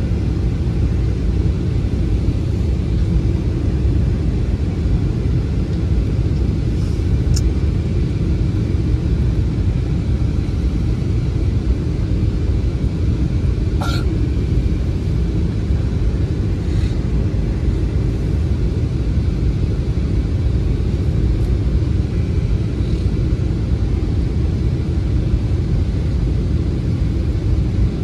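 Steady low rumble of jet engines and rushing air heard inside the passenger cabin of an Airbus A320-family airliner on descent, with a single sharp click about halfway through.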